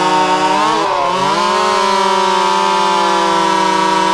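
Stihl 026 (MS260) two-stroke chainsaw running at high revs while cutting through a log. Its pitch dips briefly about a second in, then recovers and holds steady.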